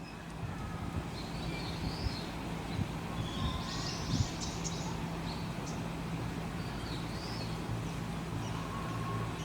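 Small birds chirping in a few short high bursts, about a second in, again at three to four seconds and around seven seconds, over a steady low hum.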